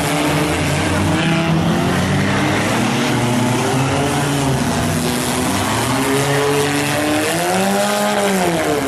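Engines of several demolition-derby vehicles running and revving together, their pitches drifting up and down; near the end one engine revs up and back down.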